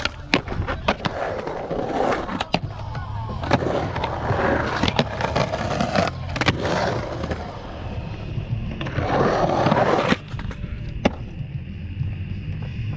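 Skateboard rolling on a concrete bowl, with repeated sharp clacks of the board striking the concrete and the coping. A louder rolling stretch builds near nine seconds and cuts off suddenly about a second later.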